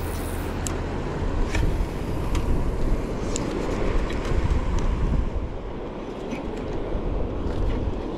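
Steady low rumble of a small fishing boat at sea, with a few faint clicks.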